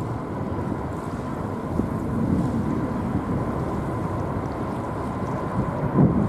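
Wind gusting across the microphone, with a thin steady whine under it from the distant jet engines of a taxiing Boeing 777-200ER. There is a stronger gust near the end.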